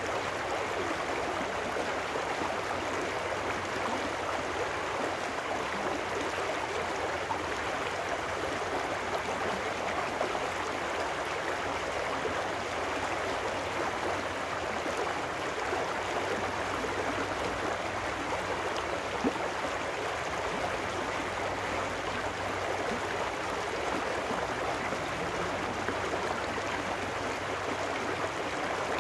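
Small trout stream rushing over rocks in a shallow riffle beside concrete culvert walls: a steady, even rush of water with no breaks.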